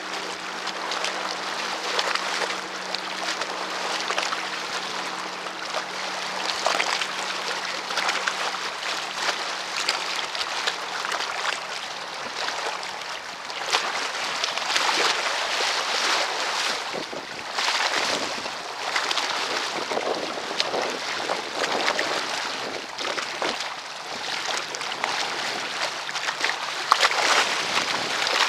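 Choppy lake water lapping and splashing, with wind rushing over the microphone in a hiss that swells and eases. A faint low hum sits under it for the first dozen seconds.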